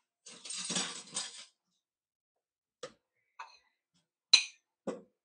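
Kitchen dishes and utensils being handled: a noisy rush lasting about a second near the start, then four separate clinks and knocks, the sharpest a little past four seconds in.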